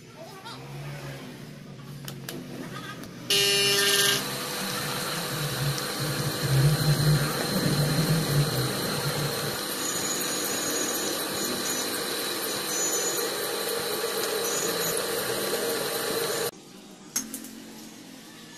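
Electric drill running with a twist bit cutting into a metal cylinder held in a lathe chuck, drilling holes at the edge of the bore to form a keyway. There is a brief, louder pitched sound about three seconds in. After that the drill runs with a steady noise that cuts off abruptly near the end, and a click follows.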